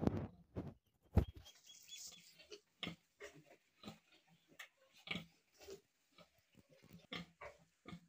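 A nursing sow grunting in a steady rhythm of short low grunts, about two a second, while her piglets suck; this grunting accompanies milk let-down. A single sharp knock about a second in.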